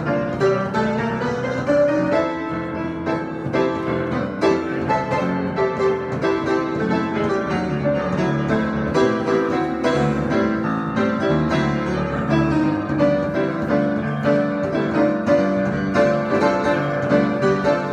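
Piano being played in an improvised solo, a continuous flow of notes and chords without a pause.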